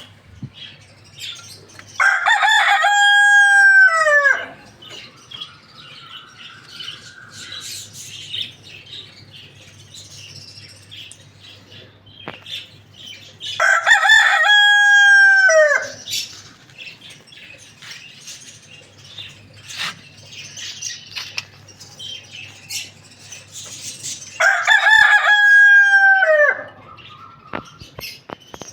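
A rooster crowing three times, each a loud cock-a-doodle-doo about two seconds long that drops in pitch at the end, roughly ten seconds apart. Faint chirps and small clicks come between the crows.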